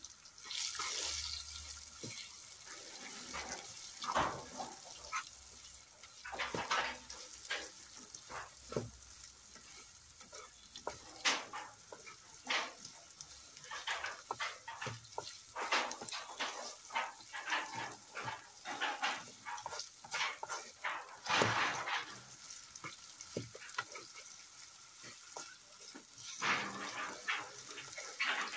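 Diced carrots and onions frying in oil in a steel wok, with a steady sizzle. A wooden spatula stirs and scrapes them against the pan in irregular strokes throughout.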